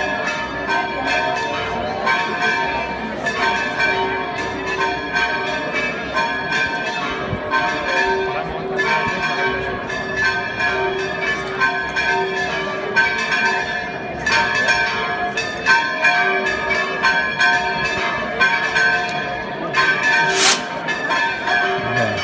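Church bells ringing a fast, continuous peal, many strikes a second over several ringing pitches. A brief sharp hiss cuts through near the end.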